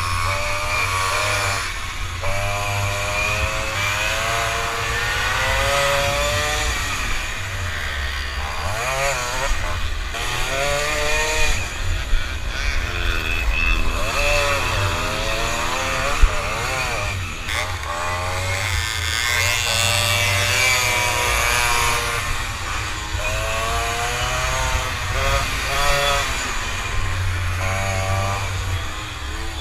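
Tomos Automatic mopeds' small two-stroke engines revving up and down over and over, heard from on board over a steady low rumble. A single sharp knock about halfway through.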